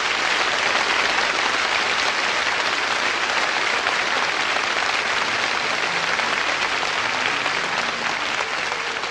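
Audience applauding steadily, a dense continuous clapping that eases slightly near the end.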